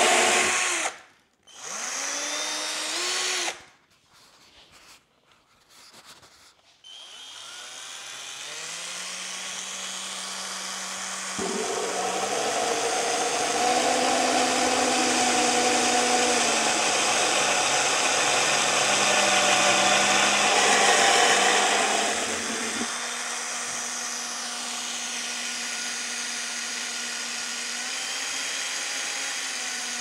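Power drill run in a few short bursts that spin up and cut off, then started again and run continuously, its motor note rising as it comes up to speed. From about a third of the way in it runs much louder for some ten seconds, then settles back to a steady, quieter run.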